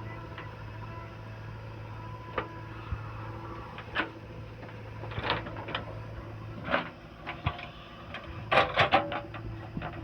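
Heavy diesel machinery running steadily at a low hum, with scattered clanks and a short burst of clattering near the end, like a loader bucket and gravel knocking against metal.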